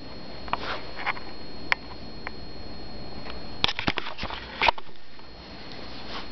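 Close handling noise from a hand-held camera and a hand on a cat's fur: scattered soft clicks and rustles, then a quick run of sharp clicks and rubbing about three and a half to five seconds in as the camera moves.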